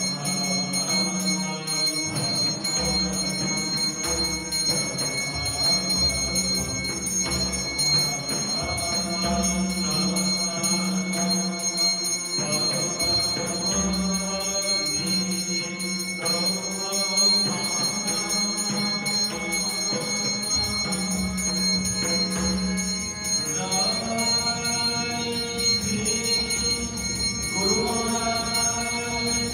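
A hand bell rings continuously under devotional group singing of an evening arati hymn.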